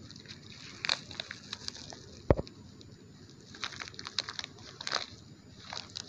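A plastic snack packet stuck in dry soil being tugged and worked loose by hand: scattered crackles and clicks of plastic and crumbling earth, with one sharp knock about two seconds in.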